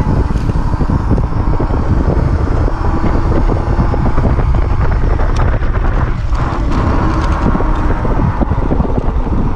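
Steady wind buffeting the microphone, with tyre and road rumble, while riding an Uberscoot electric scooter at speed.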